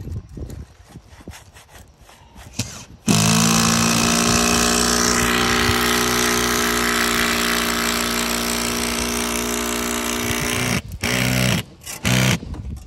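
Power drill running steadily for about seven and a half seconds, then cutting off and giving two short bursts, as it drills into the shingle roof to fix solar panel mounts.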